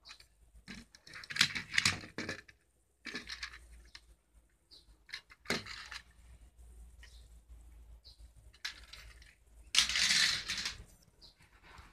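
Small metal die-cast toy cars clicking and knocking against a hard concrete ledge as they are handled and set down, with a cluster of clicks early and a single knock mid-way. A rustling scrape about a second long comes near the end.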